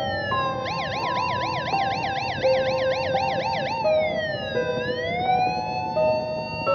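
Electronic police-style siren: a slow wail switches to a fast yelp about half a second in, then back to slow falling and rising wails near the four-second mark. Steady electronic tones step in pitch beneath it.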